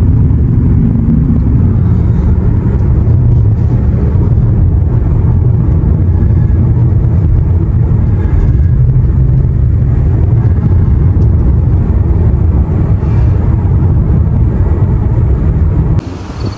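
Steady low road and engine rumble inside a moving car's cabin. It cuts off suddenly near the end.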